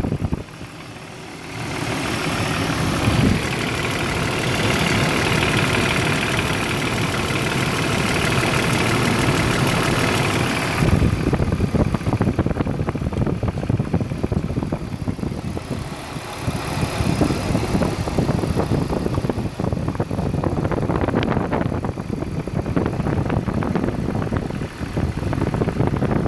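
BMW M54B25 2.5-litre straight-six engine running with a persistent rapid knocking. The knock remains after the VANOS, hydraulic lifters, timing chain and tensioners were replaced, and the owner says it gets louder when the engine is hot. About 1.5 s in the sound becomes louder, and from about 11 s a strong hiss drops away so the knocking stands out more clearly.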